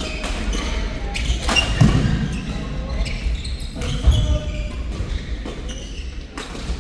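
Badminton doubles rally: a string of sharp racket strikes on the shuttlecock, irregularly a second or so apart, mixed with players' footfalls on the court mat.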